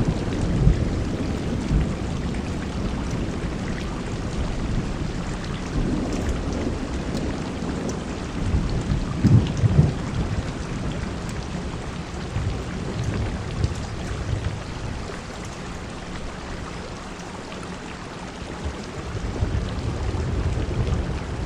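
Thunderstorm downpour: heavy rain pouring steadily, with low rumbles swelling and fading, the loudest about nine seconds in.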